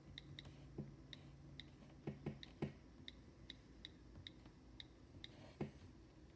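Near silence with faint, short, high-pitched ticks at uneven intervals of about half a second, and a few soft knocks from the camera being handled.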